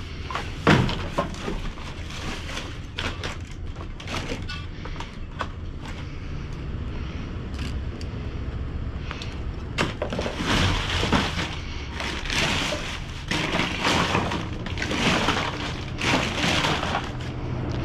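Trash being rummaged in a dumpster: plastic bags crinkling and rustling, with knocks and clatters as items are shifted. There is a sharp knock under a second in, and thick rustling through the second half.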